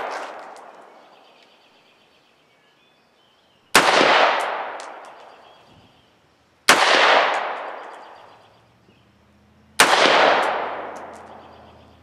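Three single shots from a Palmetto State Armory Freedom AR-15 firing steel-cased ammunition, spaced about three seconds apart. Each sharp crack trails off in a long echo.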